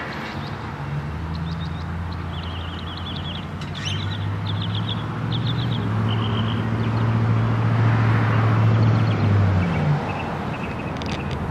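Low hum of a vehicle engine, growing louder over several seconds and dropping off about ten seconds in. A bird chirps in short, rapid runs during the first half.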